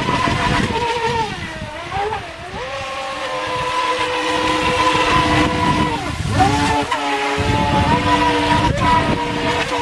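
Feilun FT011 RC speedboat's brushless motor and propeller running at speed with a high steady whine. The pitch dips and climbs back up twice, about one and a half seconds in and again about six seconds in.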